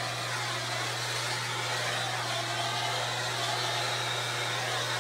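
Handheld 'lightsaber' firework wand burning, spraying sparks with a steady hiss, over a steady low hum.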